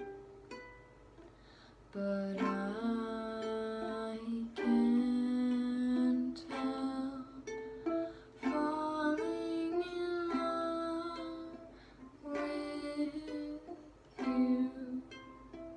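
Ukulele strummed in chords with a girl's voice singing along in held notes. The playing is quiet for the first couple of seconds, then fuller and louder.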